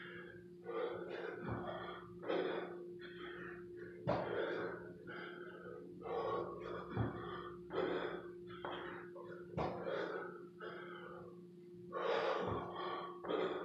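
Hard, gasping breathing of a man doing burpees, with a thud about every two and a half to three seconds as each rep hits the floor.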